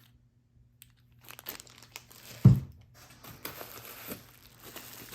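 Plastic packaging crinkling and rustling as parts are unwrapped and handled, with one short thump about two and a half seconds in.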